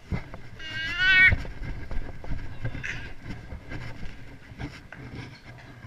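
A toddler's high, wavering squeal about a second in, lasting under a second, with scattered knocks and bumps.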